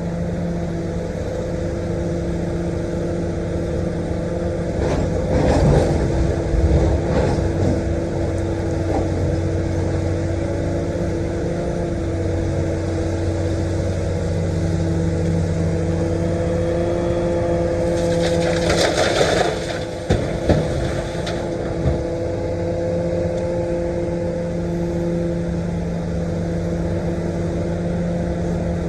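Komatsu PC450-8 LC excavator's diesel engine running steadily under hydraulic load while it digs soil and rock. Rough scraping and clattering comes twice, about five seconds in and again near two-thirds of the way through.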